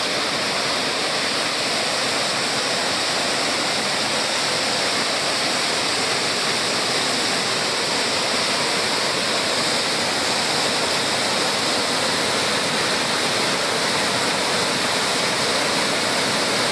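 Waterfall cascading over rocks: a steady rush of water.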